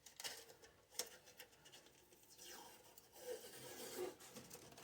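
Faint scratching, rubbing and small clicks of a strip of adhesive tape being pulled off and handled.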